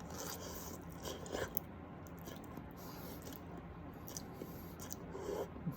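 A person chewing a mouthful of spicy instant ramen noodles, quietly. There are a few short soft mouth sounds about a second in and again near the end.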